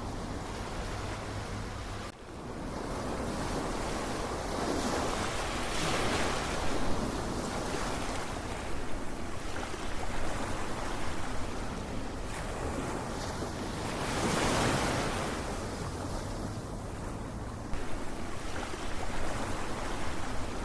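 Ocean surf: waves rolling in and washing back in a continuous rush, twice building to a louder surge.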